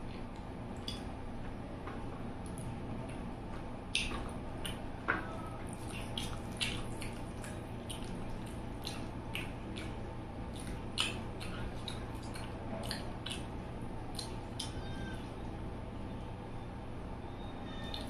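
A person eating close to the microphone: wet chewing with frequent sharp mouth clicks and lip smacks, a few louder ones standing out, over a steady low background hum.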